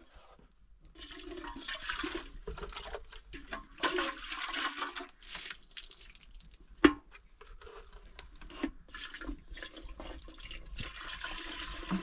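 Water running and splashing in uneven surges, with a single sharp knock about seven seconds in.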